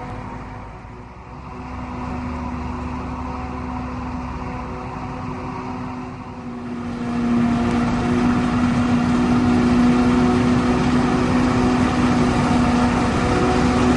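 Krone BigX 500 self-propelled forage harvester running steadily under load as it chops, a steady mechanical hum over the engine noise. It grows clearly louder about seven seconds in.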